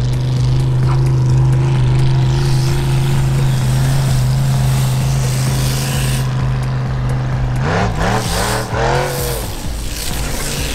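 Tough-truck engine running loud at steady revs, then revving up and down quickly about eight seconds in.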